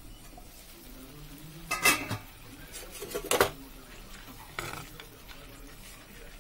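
A steel pot lid is taken off, then a metal spoon scrapes and knocks against a granite-coated pan while chicken and potato pieces are stirred in their boiling water. There are two louder clanks, about two and three and a half seconds in, and lighter taps after them.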